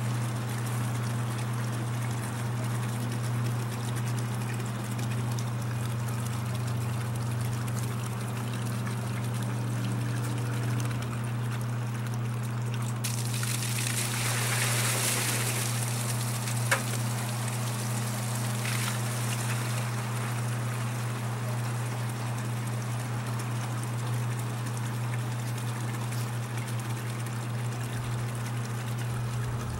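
Water pump motor running with a steady hum while water streams from its hose into a plastic bucket. About 13 seconds in, the full bucket is tipped out and the water pours and splashes for several seconds, with a sharp click partway through.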